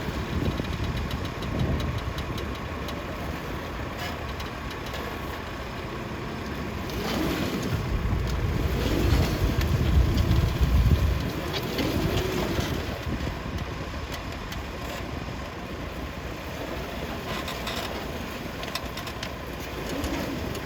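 Tractor engine running, growing louder for a few seconds partway through, then easing back.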